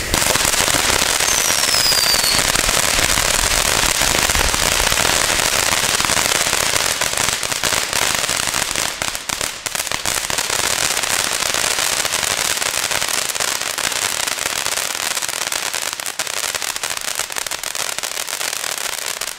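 Diamond Cool & Hot fountain firework burning: a steady loud hissing spray of sparks with crackling that gets denser in the second half. It cuts off suddenly at the end as the fountain burns out.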